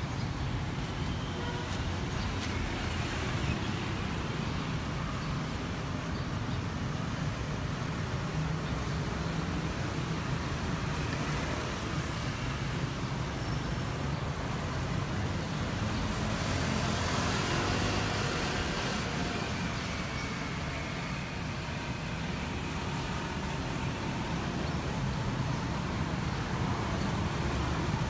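Steady rumble of road traffic, swelling for a few seconds a little past the middle as a vehicle goes by.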